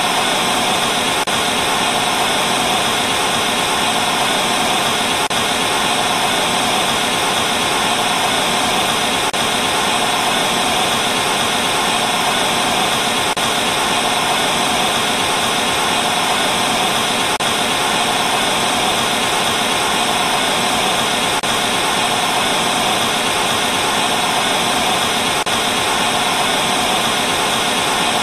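TV static: a steady, unbroken hiss of no-signal television noise, strongest in the upper middle, with a faint tick about every four seconds.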